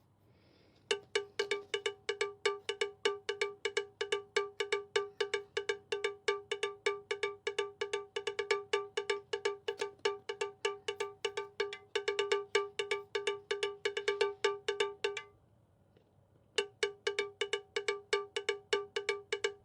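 Background music: a single bell-like note of one pitch, struck over and over at an even pace of about four times a second. It breaks off briefly near the start and again about three-quarters of the way through.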